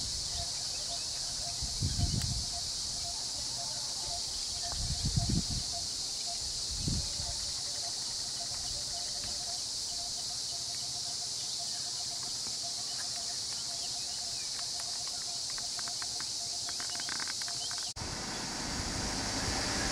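Insects buzzing steadily in high-pitched chorus, with a faint repeated chirping call. Three short low rumbles come about 2, 5 and 7 seconds in. Near the end a louder, steady low rumble takes over.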